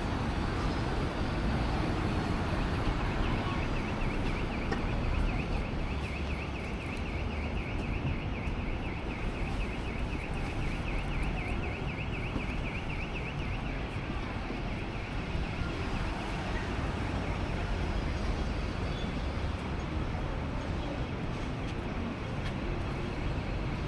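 Busy city street: a steady hum of road traffic. For about ten seconds in the middle, a rapid high-pitched ticking runs over it.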